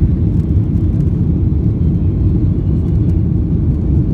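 Cabin noise inside a jet airliner climbing after takeoff: a steady, low rumble of engines and airflow.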